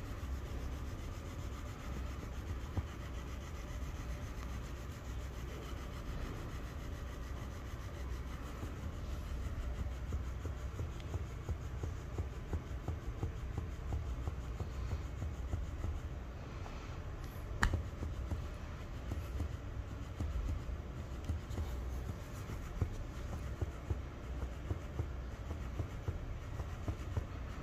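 Electric plush flopping-fish cat toy running on carpet: a steady low hum from its motor under irregular rubbing and soft slaps as the fabric body and tail flap against the carpet. One sharp click about two-thirds through.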